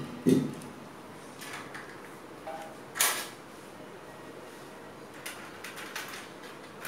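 A steel LPG gas cylinder being handled: a heavy thud just after the start as it is set down on the floor, then one sharp clank about three seconds in, with a few faint knocks near the end.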